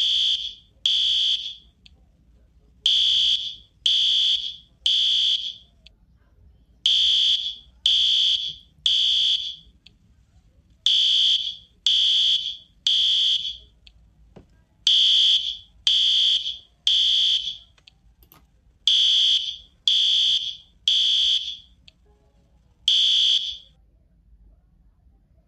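Smoke alarm sounding the three-beep evacuation pattern: loud, high beeps about a second apart in groups of three, with a pause between groups. It stops after a single beep near the end.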